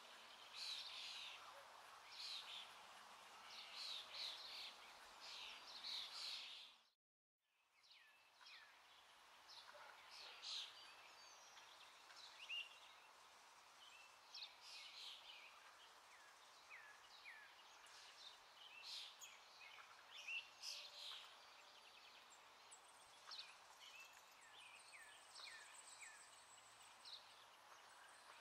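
Faint small-bird chirping, many short calls scattered over a steady low hiss, with a brief dropout to silence about seven seconds in.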